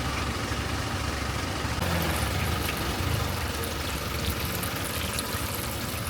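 A vehicle engine idling steadily, a low rumble under general street noise.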